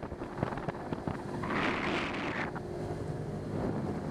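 Small boat's motor running under way, with wind buffeting the microphone. A louder rush of wind hiss comes about one and a half seconds in and lasts about a second, and the motor's steady hum comes up near the end.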